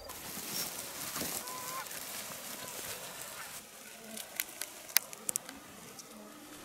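Geese honking, harsh calls over the first few seconds, then fading to quiet outdoor background broken by a few sharp clicks about halfway through.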